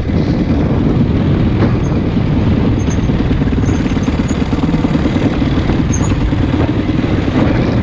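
Honda CRF450X dirt bike's single-cylinder four-stroke engine running at a steady throttle while the bike is ridden along a rocky dirt track.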